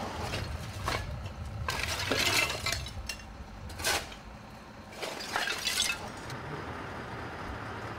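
Broken glass shards clinking and scraping in four or five short bursts, typical of glass debris being shifted or swept.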